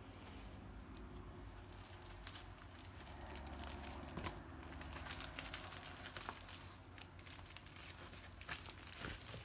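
Clear plastic packaging of diamond painting kits crinkling faintly as it is handled, with scattered light rustles and taps that come a little more often near the end.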